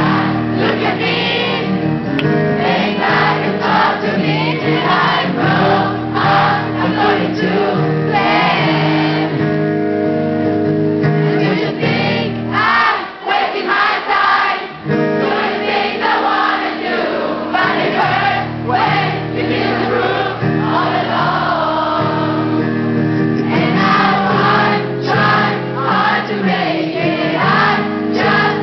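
Pop-punk band playing a song live, with a lead singer and many voices singing along. Around the middle, the low instruments drop out for a couple of seconds before the full band comes back in.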